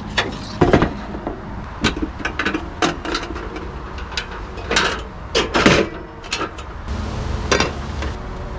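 Irregular knocks and clatter as a two-burner propane camp stove and a frying pan are set out on a wooden truck-bed kitchen drawer, with the loudest clacks about five and a half to six seconds in. A low steady hum runs underneath.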